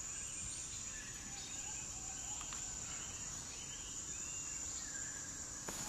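Rainforest insects droning steadily at a high pitch, with a few faint short calls over the drone.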